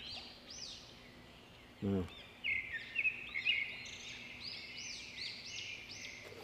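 Small birds chirping: many short notes, each rising and falling in pitch, repeated and overlapping.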